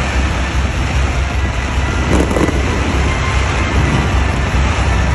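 Dense fireworks barrage: many shells and comets going off together in a continuous heavy rumble.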